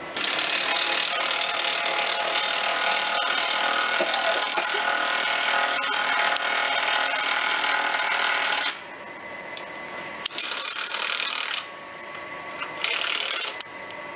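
Chainsaw cutting through tree branches: one long cut of about eight and a half seconds that stops suddenly, then two short bursts a little later.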